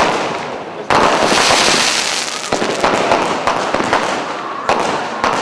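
Fireworks display: a loud bang about a second in, followed by dense crackling and several smaller bangs.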